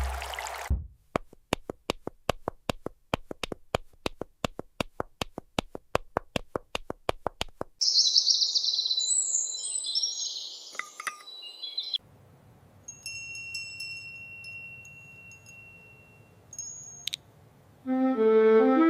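A long run of sharp, even knocks, about four to five a second, like a blade or pestle striking. After them come birds chirping, then a short run of musical notes near the end.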